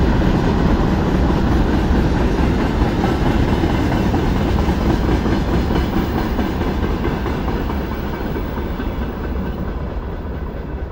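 Freight train wagons rolling past on the rails, a steady noise of wheels on track that grows gradually fainter over the last few seconds as the end of the train goes by.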